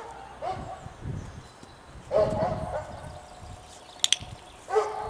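A puppy barks in high, drawn-out yelps three times, the loudest a little after two seconds in. A training clicker clicks once about four seconds in, marking the puppy at the floor target.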